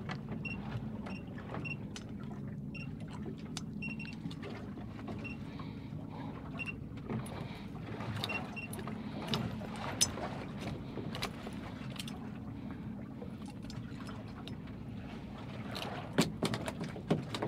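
Boat engine idling with a steady low hum, under scattered clicks and knocks from handling gear on board and a series of faint short high beeps.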